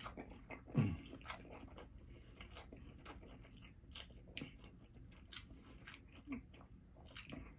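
Close-miked chewing: a run of short, sharp mouth clicks and smacks, with a short low hum about a second in.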